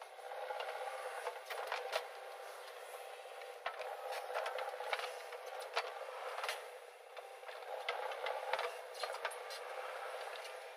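JCB 3DX backhoe loader's diesel engine running steadily under load as the backhoe arm digs and swings, with frequent short, sharp knocks from the working machine.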